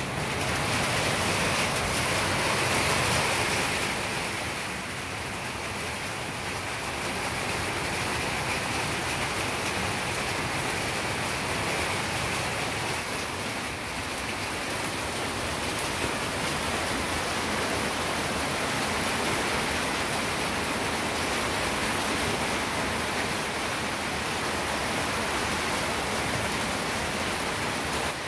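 Heavy rain falling: a steady, even hiss of rain that does not let up.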